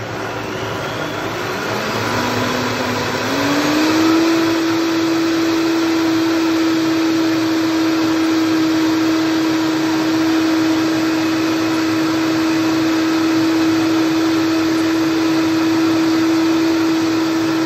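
Vitamix high-speed blender running on a thick cashew-and-vegetable sauce, its motor pitch stepping up twice in the first few seconds as it is turned up to high, then holding a steady, loud whine.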